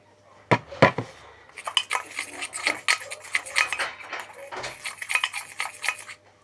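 A spoon or other utensil stirring slime mixture in a bowl: two sharp knocks against the bowl, then rapid clinking and scraping.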